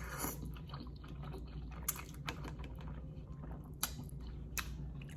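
Close-miked chewing of instant noodles: soft, wet mouth clicks and smacks, with a few sharper clicks.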